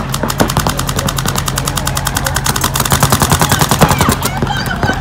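Paintball markers firing long rapid strings of shots, evenly spaced at more than ten a second, the pops of several guns overlapping.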